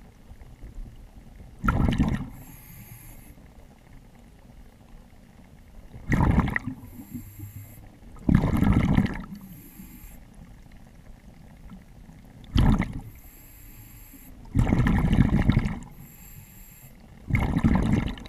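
A diver breathing underwater through breathing apparatus. Six loud, short gushes come a few seconds apart, with fainter hissing between some of them.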